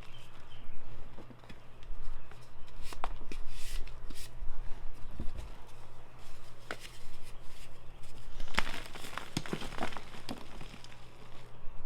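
Crumbly blocks of Ader gym chalk, mixed with holi powder, being crushed, giving scattered soft crunches and crumbling crackles. The crunches come thickest in a dense cluster about nine to ten seconds in, over a low steady hum.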